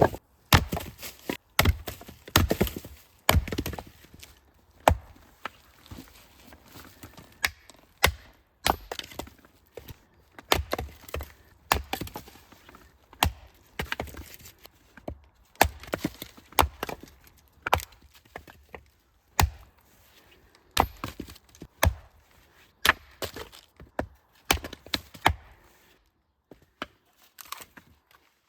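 Firewood being chopped and split: repeated sharp wooden chops and cracks at an uneven pace, roughly one a second, with a short pause near the end.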